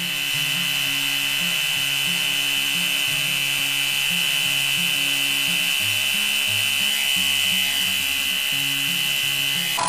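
12V air compressor running steadily under load while it pumps up pressure, sped up about threefold so its whine sits high and thin. Background music with short stepping low notes runs underneath.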